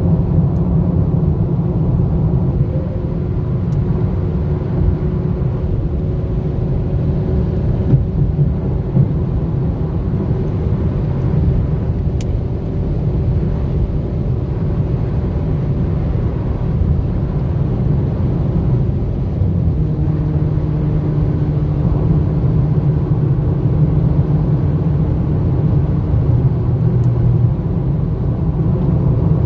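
Cabin sound of a Volkswagen Jetta 1.4 TSI turbo four-cylinder pulling at highway speed during a rolling acceleration: a steady engine drone over road and tyre noise. The engine note changes pitch about twenty seconds in.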